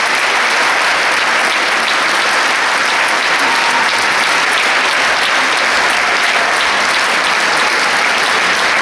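Large concert-hall audience applauding, a dense, steady clapping.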